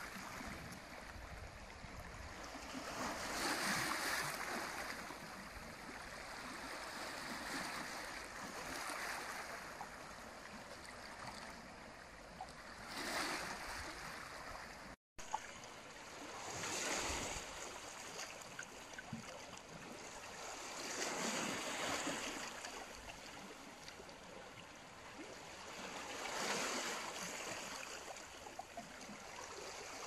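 Small Black Sea waves washing onto rocks and a pebbly shore, the surf swelling and falling back every four to five seconds. There is a momentary break in the sound about halfway through.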